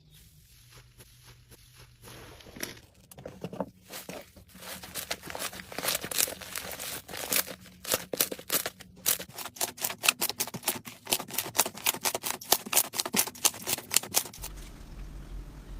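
Slime being handled, giving a rapid, irregular run of sharp crackling clicks that starts a few seconds in and stops shortly before the end.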